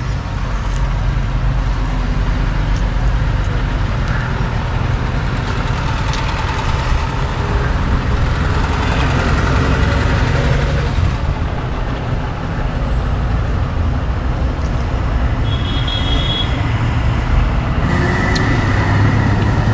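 Traffic on a busy road: a steady rumble of passing motor vehicles, buses and motorbikes, with a couple of brief high tones near the end.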